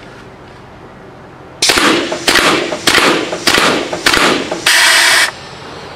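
A converted CO2-powered paintball gun firing fully automatic, shooting AA batteries from its spring-loaded magazine: five sharp pneumatic shots about 0.6 s apart, then a final longer hiss of gas that cuts off sharply.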